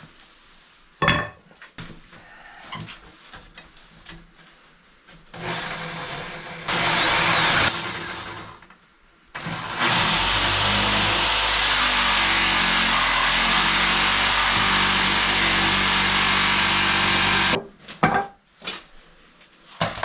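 A power tool's motor runs hard for about seven and a half seconds, starting about halfway through and cutting off suddenly, with its pitch wavering as it bears into the work. Before it come a sharp knock and a shorter burst of the tool.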